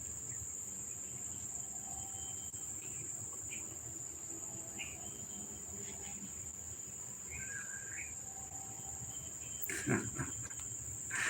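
Insects chirring in a steady high-pitched drone, with a few faint short calls over it and a brief soft sound near the end.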